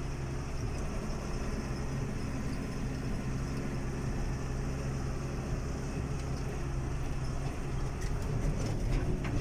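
Tractor engine running steadily while driving, heard from inside the cab, with a few knocks and rattles near the end.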